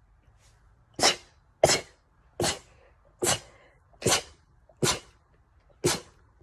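A young woman sneezing in a rapid fit: seven short, sharp sneezes a little less than a second apart, each cut off quickly.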